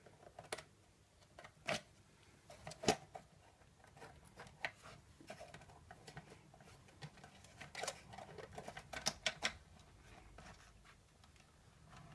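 Scattered light clicks and taps of a large handheld spotlight torch's casing being handled and pulled open, a little busier about two-thirds of the way through.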